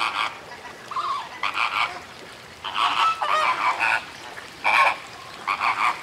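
A large flock of flamingos honking, many birds calling at once in repeated bursts about a second apart, with quieter gaps between.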